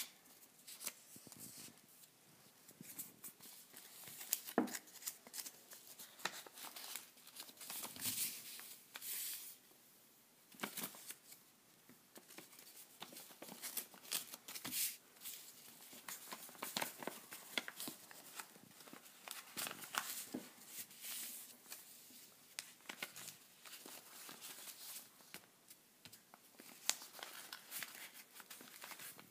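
A sheet of paper being folded and creased by hand: irregular crinkling and rustling with short, sharp crackles as the folds are pressed down.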